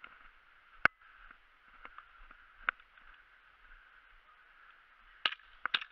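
Scattered sharp cracks of airsoft shots and BB impacts, one loud crack about a second in, a few fainter ones after, and a quick run of three or four near the end, over a steady muffled hiss.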